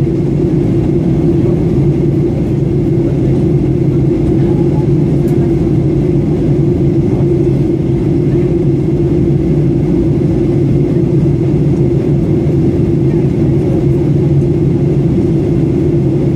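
Steady drone of a jet airliner in flight, heard from inside the passenger cabin: an even, unchanging low rumble of engines and airflow.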